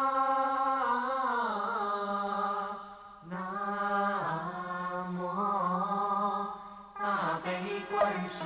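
A voice chanting long, held notes on a steady pitch, with the vowel sound slowly shifting. It breaks off briefly about three seconds in and again near seven seconds, then turns busier.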